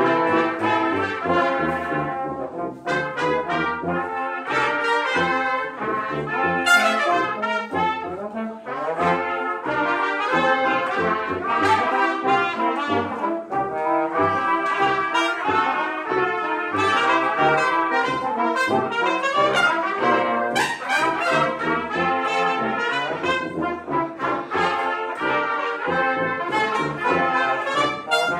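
Live brass ensemble of trumpets, French horn, trombone and tuba playing a piece together, with a busy run of short notes over a tuba bass line.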